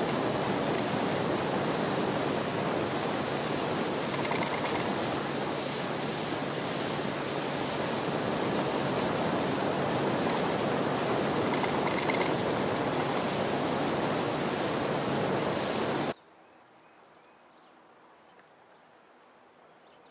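A small aluminium boat running at speed on its 50 hp Yamaha outboard: a steady, dense rush of wind and water noise. It cuts off abruptly about 16 seconds in, leaving only a faint background.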